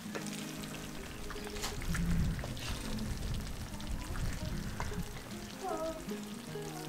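Wooden spatula stirring saucy braised beef short ribs in a cast-iron pot, the braise sizzling lightly, with a few light clicks of the spatula against the pot. Background music with sustained notes plays throughout.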